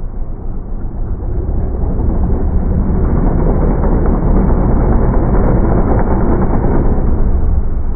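Vehicle engine rumble, building over the first few seconds and then holding loud and steady.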